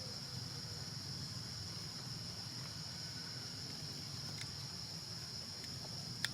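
Steady high-pitched drone of insects over a low rumble, with one sharp click near the end.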